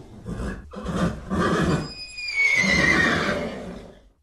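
Horse neighing: several whinnies in quick succession, the last a long cry falling in pitch, fading out just before the end.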